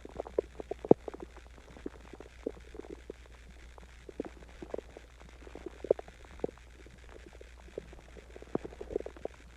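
Human stomach growling: irregular short gurgles and pops, bunched together near the start, about six seconds in and near the end. It is the gut digesting a meal of Chinese food and water.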